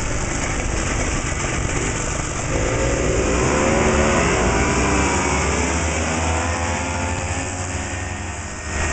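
Several vintage 10–20 hp snowmobile two-stroke engines at a race start: running at the line, then revving hard about two and a half seconds in as the sleds launch. Their engine notes rise together, loudest about four seconds in, then fade as the sleds pull away.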